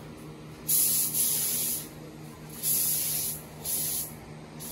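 Compressed air hissing from a hand-held air gun in the paint booth, three short bursts of about a second or less each. A steady low hum runs underneath.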